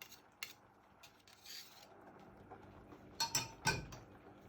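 Kitchen utensils being handled: a light clink about half a second in, a short soft scrape around a second and a half, then a few louder knocks and clinks a little past three seconds.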